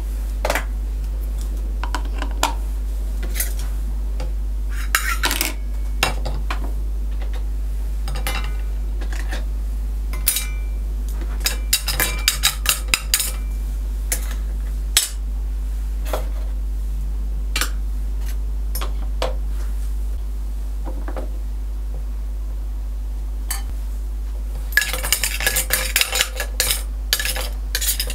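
Toy cookware and plastic toy food being handled: a small steel toy frying pan and plastic pots and utensils clinking and clattering as pieces are set down and moved about. The sounds come as scattered clicks, with bursts of rapid clinking about five seconds in, around twelve seconds in, and near the end. A steady low hum runs underneath.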